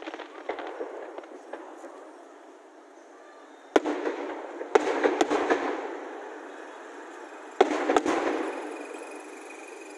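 Aerial fireworks shells bursting: a patter of small crackles at the start, then sharp bangs about four and five seconds in and a pair about eight seconds in, each trailing off in a rolling echo.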